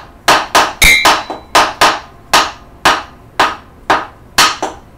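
Wooden sticks striking the floor in a steady beat, about two strokes a second with some quicker doubled strokes mixed in. One stroke about a second in rings with a metallic tone, a hit on the steel pot.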